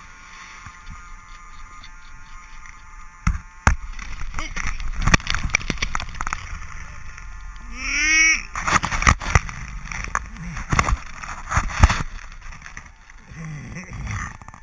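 Steady whirr of a Smith goggle turbofan, then dense rustling and knocking of clothing, straps and gear against a helmet-mounted camera as the wearer dangles from a chairlift by his backpack. About eight seconds in, a short voice cry rises and falls.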